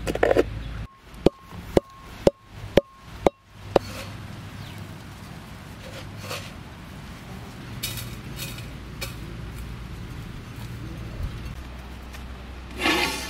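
Whole spices being pounded with a pestle in a mortar: about seven sharp strikes, roughly two a second, then only faint scraping. Music starts near the end.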